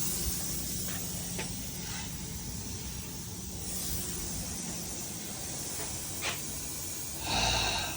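Steady spray hiss with a low hum beneath it, and a louder, short sound near the end.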